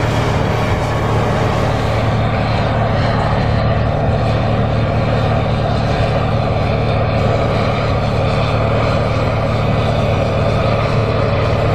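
John Deere 8R tractor's six-cylinder diesel engine running steadily under load while pulling a tillage implement through the soil.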